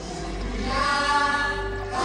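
Music with a choir singing long held notes.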